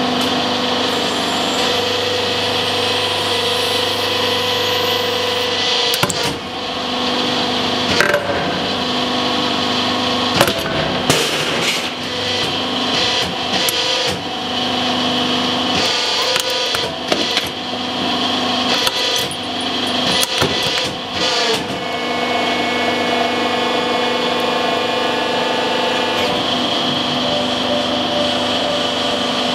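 Hydraulic press pump motor humming steadily while the ram crushes two hydraulic bottle jacks. Sharp cracks, pops and crunches of breaking metal come in a cluster from about six to twenty-two seconds in.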